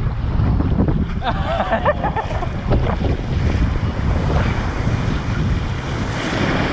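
Small waves washing up a sandy beach and swirling through the shallows, with heavy wind rumble on the microphone. A brief high-pitched voice cuts in about a second and a half in.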